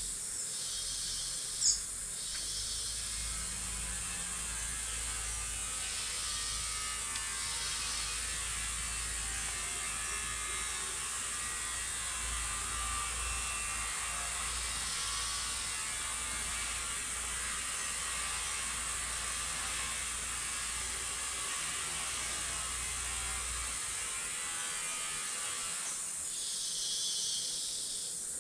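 Lowland tropical rainforest ambience: a steady high insect hiss overlaid by a pulsing insect chorus that swells in and drops out in waves a second or two long. A single brief sharp high chirp comes about two seconds in.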